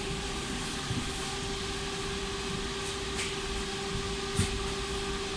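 Steady hum of a standing BKM 60102MN tram's onboard electrical equipment, with one constant tone running under it. A single sharp knock sounds a little over four seconds in.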